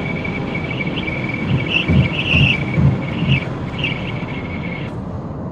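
Cabin noise of a 2023 Ford Taurus/Mondeo sedan travelling at about 140 km/h: steady road and engine noise with a thin high-pitched whine running through it, and a few low thumps around the middle.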